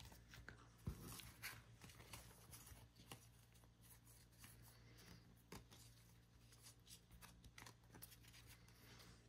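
Near silence, with faint scattered ticks and slides of baseball trading cards being flipped through by hand over a low steady hum.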